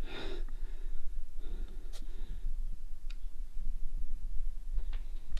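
A couple of breaths and about three small, sharp clicks from a handheld EMF meter being handled, over a steady low hum.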